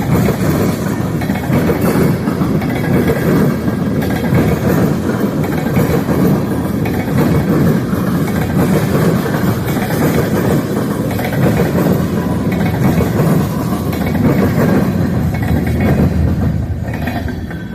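Freight train rolling past close by: a steady, heavy rumble of wheels on rail that cuts off suddenly at the end.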